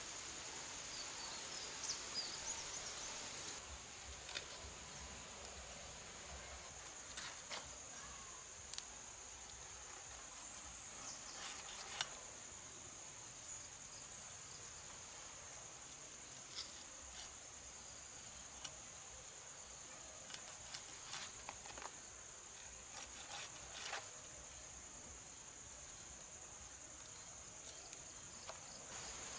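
Steady high-pitched drone of insects outdoors, with scattered sharp clicks and scrapes of fish being cut and cleaned on a fixed blade.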